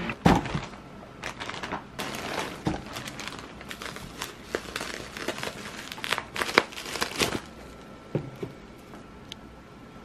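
Bubble-wrap packaging crinkling and crackling as a parcel is unwrapped by hand: dense rustling for about seven seconds, with a sharp knock at the very start, then only a few scattered crackles.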